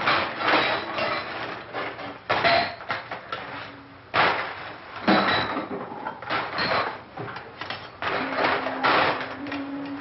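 Hammer blows on wood, about six heavy strikes at uneven intervals, each ringing briefly, with a low held music note under the last couple of seconds.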